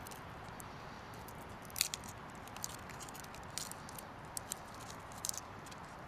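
Dry, papery skin of a garlic clove crackling in short, faint bursts as fingers peel it, over a steady faint hiss.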